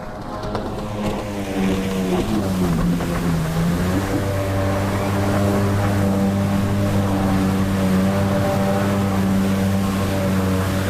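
Jet ski engine running, growing louder over the first two seconds, its pitch dipping briefly and then coming back up to hold steady, over a hiss of water and wind.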